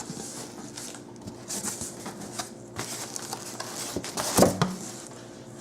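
Cardboard box and packaging being opened and handled: irregular rustling and scraping with light knocks, the loudest knock about four and a half seconds in.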